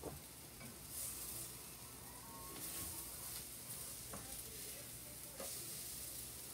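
Banana pancake batter sizzling in a frying pan: a faint, steady high hiss that swells now and then, with a few light clicks.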